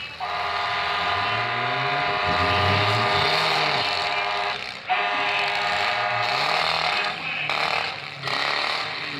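A horn sounds in two long steady blasts, the first about four seconds and the second about two and a half, over demolition derby car engines revving up and down.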